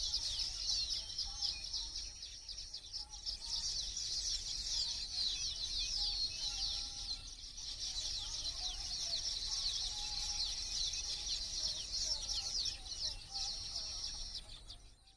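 Many small birds chirping together in a dense, continuous chorus of quick, high, downward-sweeping notes, fading out near the end.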